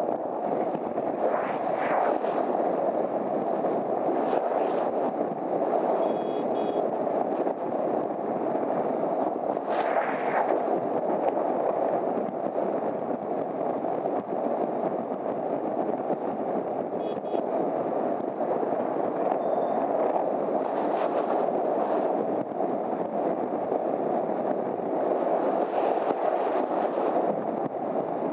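Steady rush of wind and engine noise from a Honda CBR250R motorcycle being ridden at speed, holding an even pace with no pauses.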